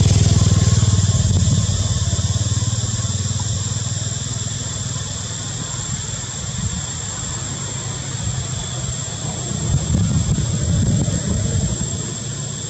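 A motor engine running close by, a steady low rumble that is loudest at the start and swells again about ten seconds in, with a steady high-pitched tone throughout.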